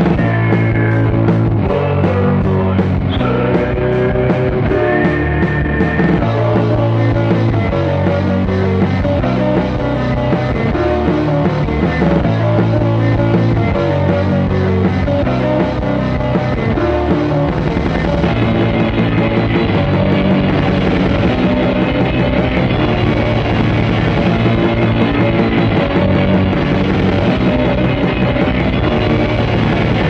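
Instrumental music track with a bass line and melody, playing at a steady level; the highest, hiss-like sounds thin out about eighteen seconds in.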